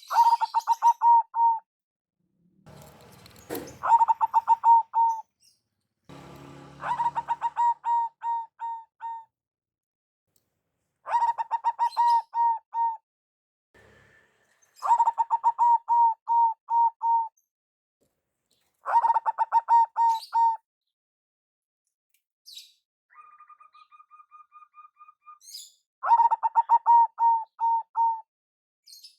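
Zebra dove (perkutut) cooing: a run of short phrases, each a quick series of staccato coo notes lasting about two seconds, repeated seven times. A fainter, faster run of pulsed notes sounds a little before the last phrase.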